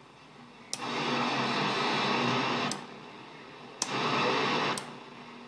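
CB radio receiver static rising to a loud hiss twice, for about two seconds and then about one second, each burst starting and ending with a sharp click as the Silver Eagle 200 linear amplifier's receive-amp switch is pressed on and off. The louder static is the receive preamp working.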